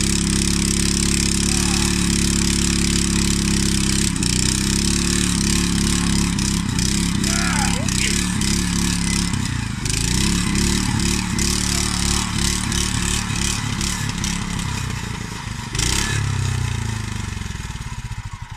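Small gas engine of a two-man earth auger running under load as the bit bores a post hole, its pitch wavering as the load changes. About sixteen seconds in it gets louder as the auger is lifted out of the hole, then it winds down at the very end.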